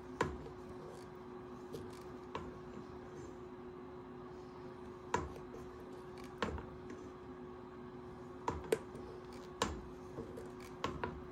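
A wooden spatula stirring thick ube maja blanca pudding in a stainless steel pot, knocking and scraping against the pot about nine times at irregular intervals. A steady hum runs underneath.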